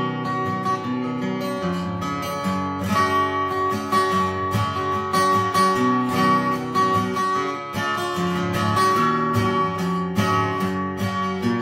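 Eastman PCH2-GACE acoustic guitar, with a spruce top and laminated rosewood back and sides, played unplugged on stock strings: a continuous run of chords, each attack ringing on into the next.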